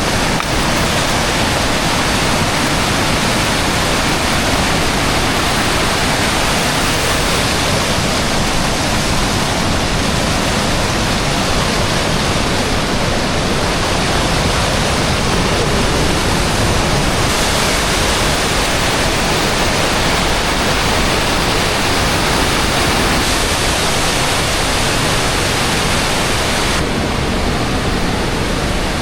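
Waterfall running shallow at low water: a loud, steady rush of falling water.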